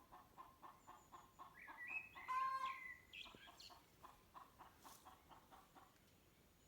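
A chicken clucking in quick, even repeats, about five a second. About two seconds in comes a louder, drawn-out squawk with a rising start, and then the clucking resumes more faintly.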